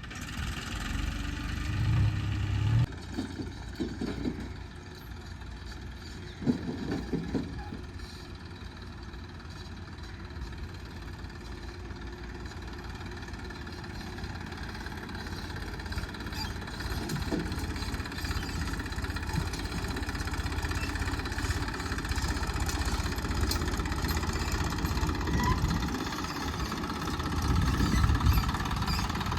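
Heavy diesel engine running steadily near idle, with a few brief louder surges, slowly growing louder toward the end.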